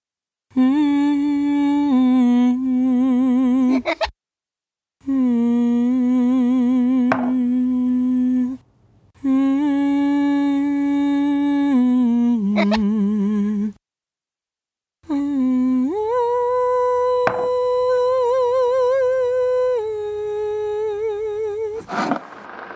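A solo voice humming a slow, wordless melody in long held notes with vibrato, broken by short silences; the last phrase sits about an octave higher than the rest.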